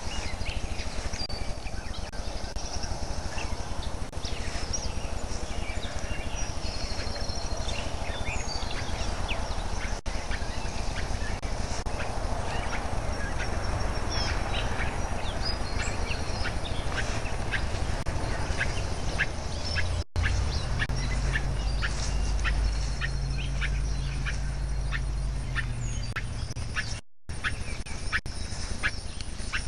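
Outdoor ambience: scattered short bird calls over a steady low rumble, which grows louder for several seconds past the middle. The sound cuts out briefly twice.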